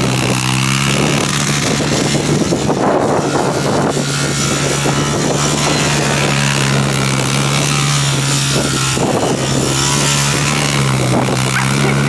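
ATV engine running at a steady speed while riding, with wind rushing over the microphone; the engine pitch drops slightly near the end.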